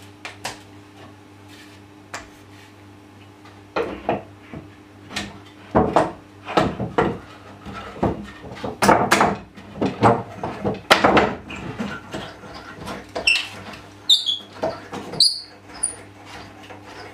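Wooden knocks and clatter as a plywood stand's leg is handled and set in place, with a few short high squeaks near the end as a wooden knob holding the leg is turned.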